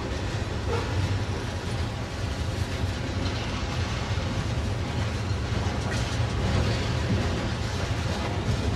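Freight cars of a passing mixed freight train rolling by: a steady rumble of steel wheels on the rails.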